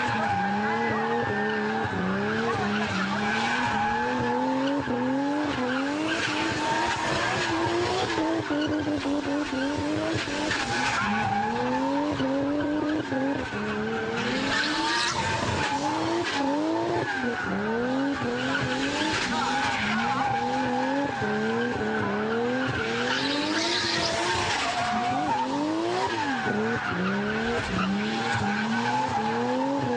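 Drift car doing donuts on full lock: its engine revs up and drops back again and again, about once a second, over the hiss of spinning tyres. The tyre screech swells loudly several times.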